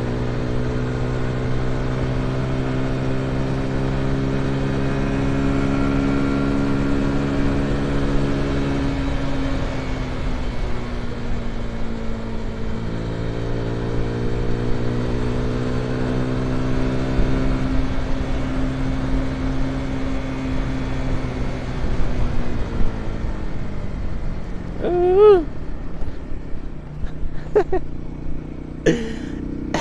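Dayun Flasher 200 motorcycle engine running at road speed under wind noise, steady at first, then dropping in pitch as the bike slows. It settles on a lower steady note and fades, followed near the end by a brief wavering tone and several sharp knocks.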